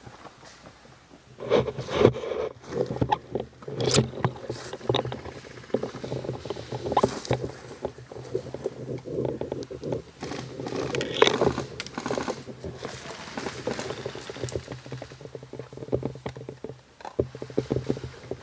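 Irregular knocks, clicks and rustling from an M4 airsoft gun and the player's gear being handled and carried, picked up by the camera mounted on the gun, over a faint low steady hum.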